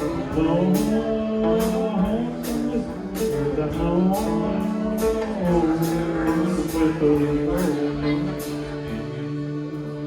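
Slide guitar and acoustic guitar playing a slow country tune live. The slide glides between held notes over a steady strum a little more than once a second.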